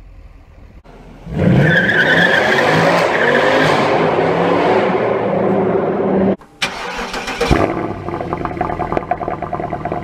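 Mercedes C63 AMG's 6.2-litre V8 under hard acceleration in an underpass, the revs sweeping up and held for about five seconds. After a short break the engine is started with a brief flare and settles into an idle, a steady rapid burble from the twin exhaust.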